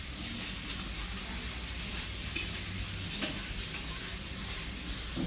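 Kitchen tap running into the sink as hands are washed under it: a steady hiss of water that starts and stops abruptly, with a faint knock about three seconds in.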